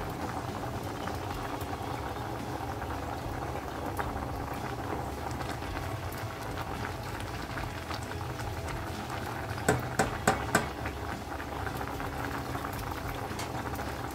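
Rice boiling hard in a stainless steel pot of water, with a steady bubbling. About two-thirds of the way through, four quick sharp knocks sound as the plastic stirring spoon strikes the pot.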